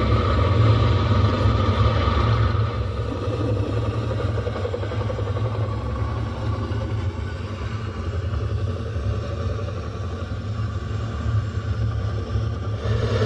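A machine running with a steady low rumble and hum; a higher hum in it fades out after about two and a half seconds.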